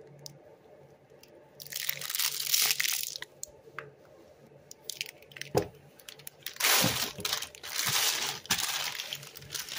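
Small plastic fruit-snack pouch crinkling and crumpling in the hands, in irregular bursts with a sharp click about five and a half seconds in. The crinkling is densest and loudest over the last three seconds.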